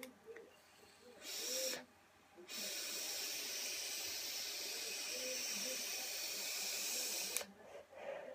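Long, steady airy hiss of a draw through a sub-ohm vape tank fired at about 35 watts on a 0.33-ohm coil, lasting about five seconds after a short hiss about a second in, followed by a softer breath of exhale near the end.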